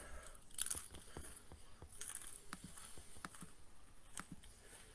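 A person chewing a small snack close to the microphone: a run of small, irregular crunching clicks.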